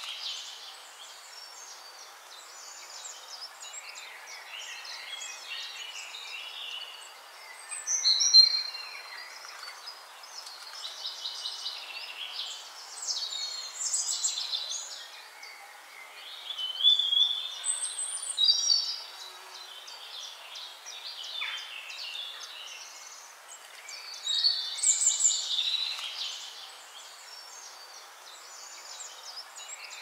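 Lories and lorikeets in a walk-in aviary calling: many short, high chirps and squawks that come in scattered bursts over a steady hiss.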